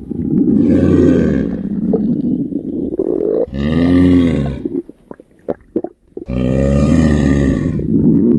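Loud, exaggerated cartoon stomach-growl sound effects from a hungry stomach. A long rumbling growl of about three seconds comes first, then a shorter growl that rises and falls in pitch, a few short pops, and another long growl beginning past the middle.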